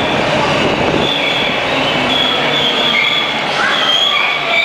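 Toronto subway train running into the station: a loud steady rumble of the cars, with high-pitched wheel squeal building up from about a second and a half in.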